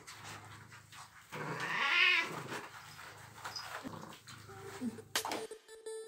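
Wet domestic cat meowing while being bathed: one loud, drawn-out meow about a second and a half in, then shorter, fainter ones. Background music starts near the end.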